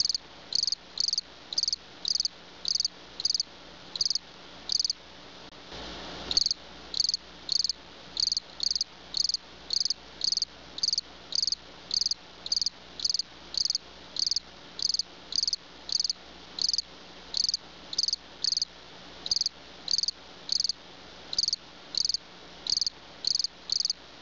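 Cricket chirping steadily, short high chirps at about two a second, with a short bump about six seconds in.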